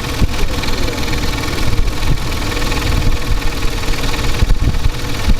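Mercedes-Benz M112 V6 engine idling, with a knock from the engine, the fault the owner is tracking down.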